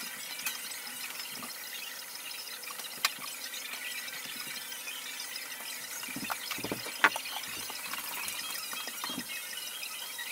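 Vacuum cleaner running with a steady hiss of sucked air as its floor nozzle is worked over a hard floor. Sharp knocks of the hose and wand come about three seconds in and, louder, about seven seconds in.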